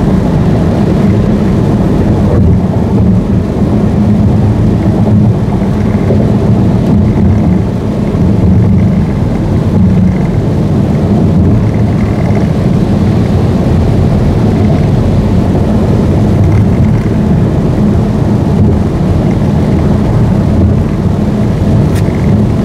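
Steady low rumble of a car driving at speed on a rain-wet freeway, road and engine noise heard from inside the cabin.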